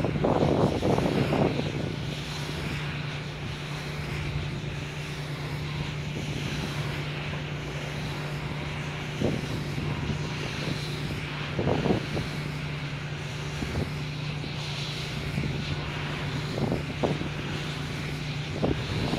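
NEG Micon NM82/1500 wind turbine running, a steady low hum under an even rushing noise. Wind buffets the microphone in the first second or so, and there are a few brief bumps later on.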